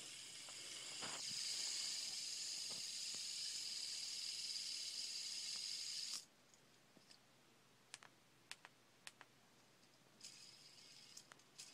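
LED fidget spinner spinning on its bearing with a high, hiss-like whir. It starts sharply, swells after a flick about a second in, and cuts off suddenly about six seconds in when it is stopped. A second, quieter spin starts near the end, with light clicks of handling in between.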